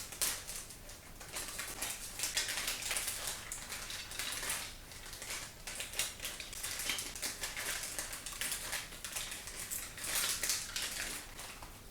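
Plastic parts of a Sylvanian Families toy house being handled and fitted together: an irregular run of small clicks, taps and rattles.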